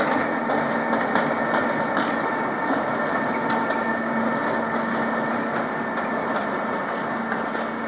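Train running on rails: a steady running noise with a faint held hum and scattered light clicks.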